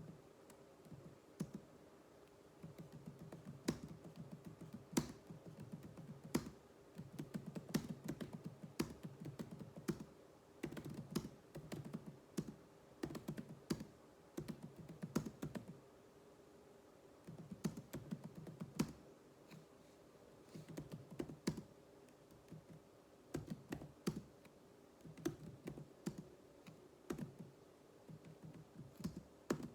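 Typing on a computer keyboard during a typing drill: rapid keystroke clicks in runs of a few seconds, broken by short pauses.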